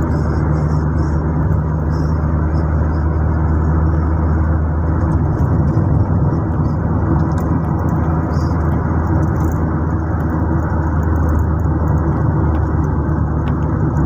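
Steady engine and road noise of a car driving at speed, heard from inside the cabin, with a continuous low hum.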